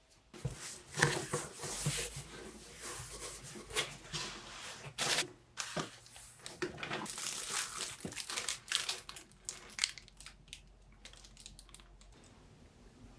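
Plastic grocery bags crinkling and a cardboard delivery box being handled as groceries are unpacked from it, a run of irregular rustles and crackles that thins out near the end.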